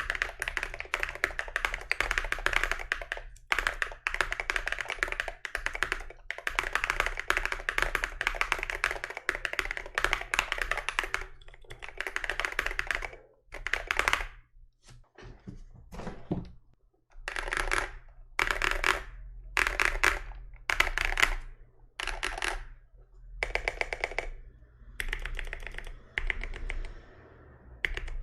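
Typing on a GMMK Pro mechanical keyboard with Glorious Panda tactile switches, SA-profile keycaps and a PE foam mod. The key clacks come in fast, dense runs through the first half, then in shorter bursts about a second apart.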